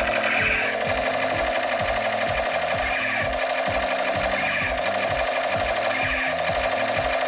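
Fast, steady electronic music with a thudding beat about three to four times a second over a repeating bass line.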